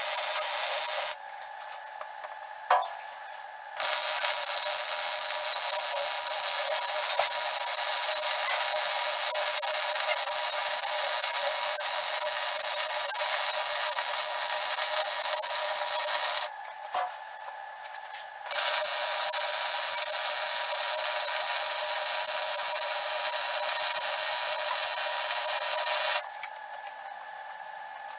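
Arc welding a lap joint in a steel loader bucket: the arc gives a steady hiss in three runs. It breaks off about a second in, starts again a few seconds later, pauses for about two seconds past the middle, then stops near the end. A sharp click sounds in the first pause.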